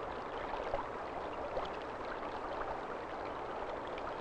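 Shallow stream water rushing steadily around wading legs, with many small splashes and gurgles.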